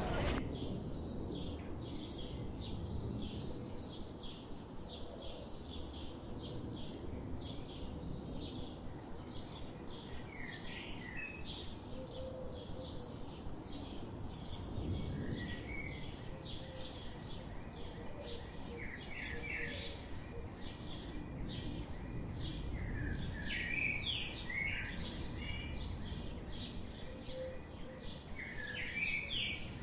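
Birds calling: a rapid, evenly repeated high chirp with short whistled calls now and then, over a low steady background noise.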